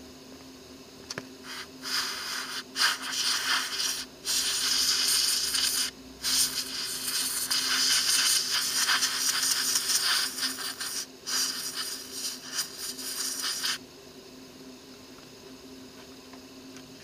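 A can of compressed air sprays into a hole in a rotted wooden door frame in several long hissing bursts with brief breaks, blowing out loose wood debris, then cuts off abruptly.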